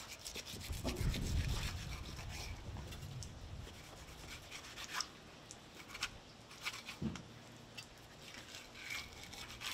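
A Dalstrong knife slicing and scraping through the tough skin of a hanging swordfish: a rasping, scratchy cutting sound broken by scattered sharp ticks. A brief low rumble comes about a second in.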